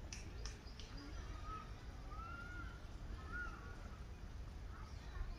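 Mandarin ducks giving three short whistled calls, each rising then falling, about a second apart, over a steady low rumble of outdoor background noise. A few sharp clicks sound in the first second.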